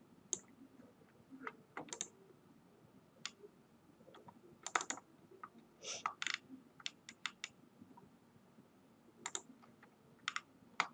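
Faint clicking of a computer mouse and keyboard: scattered single clicks and quick pairs, with a short run of rapid clicks about seven seconds in.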